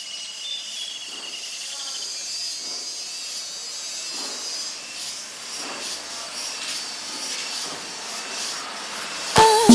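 Insect-like chirring over a steady hiss. Near the end, synthesizer cumbia music kicks in with sharp percussion hits.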